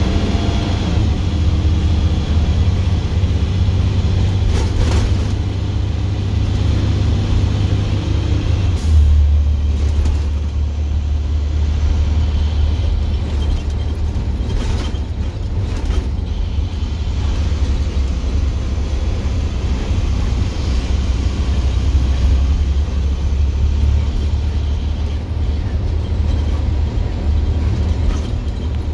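Straight-piped International DT466E inline-six diesel running loud and low while the bus drives, heard from inside the cab. The engine note changes about nine seconds in, and a few short knocks come through along the way.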